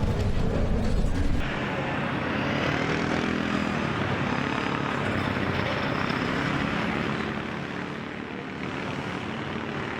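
Aftermath of a nitro Funny Car's engine explosion: a loud low rumble that cuts off about a second and a half in, then a steady rushing noise with faint shifting tones as the stricken car carries on down the track.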